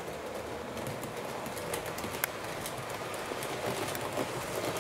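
Model railway train running on the track: a steady rolling rumble of the locomotive's motor and wheels, with light clicking over the rail joints and one sharper click a little after two seconds in.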